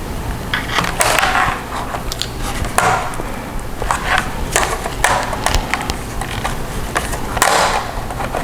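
Irregular clicks, snaps and scraping of a plastic laptop keyboard trim being pried off, its retaining clips letting go.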